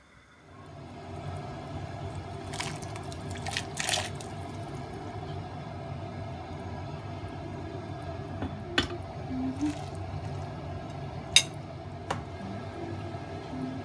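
Meat broth simmering in a steel pot on a gas stove: a steady bubbling hiss, with a few sharp clinks of a utensil against the pot.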